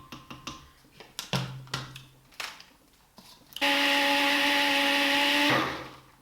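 A few knocks and clicks, then a countertop blender runs in one loud burst of about two seconds, blending a thick mix of ginger, lemon, garlic and honey, and cuts off and winds down.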